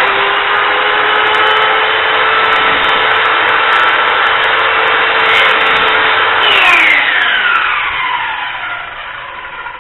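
Radial arm saw running while trimming a little more off a wooden frame piece. The motor is switched off about six and a half seconds in and winds down, its pitch falling as it fades.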